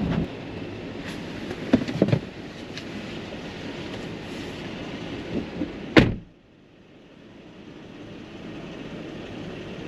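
Steady road and cabin noise from a moving SUV, with a couple of knocks about two seconds in and a sharp thump about six seconds in. After the thump the noise drops away and slowly builds back up.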